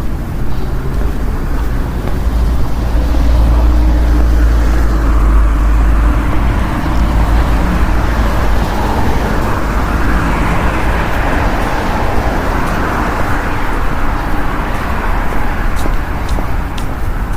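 Street traffic: a low engine rumble builds a couple of seconds in, then tyre and engine noise swells and fades as vehicles pass.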